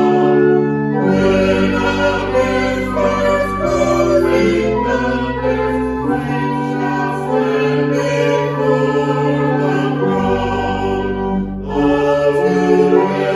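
Choir singing a slow hymn in held chords that change every second or two.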